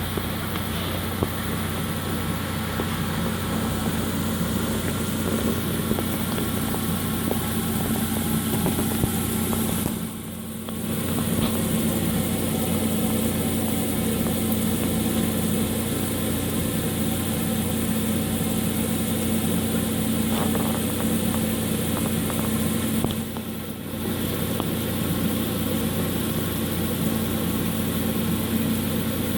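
Steady mechanical hum with a constant low drone, briefly dropping away twice.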